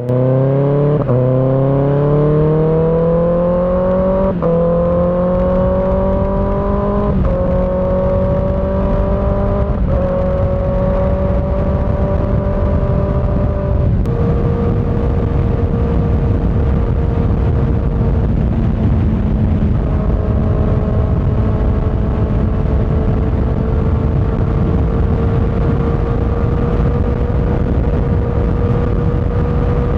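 Kawasaki ZX-6R inline-four running through an aftermarket M4 GP19 exhaust with a Q3 dB-killer insert, accelerating hard through the gears. The pitch climbs and drops back at each of five quick upshifts in the first half, then holds a steady, slowly rising note at highway cruising speed, with wind noise underneath.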